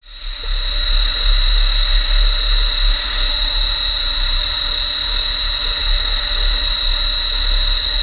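Hypertherm HPR260XD plasma torch cutting metal plate: a loud, steady hiss with a piercing high whine, which starts suddenly as the arc fires and holds steady through the cut.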